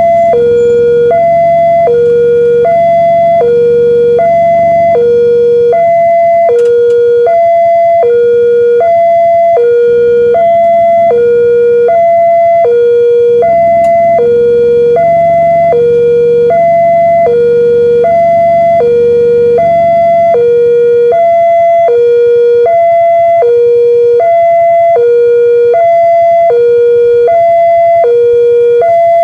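Railroad level-crossing alarm sounding its electronic two-tone warning, a high and a low note alternating in a steady repeating pattern. It is the signal that the barriers are down and a train is approaching.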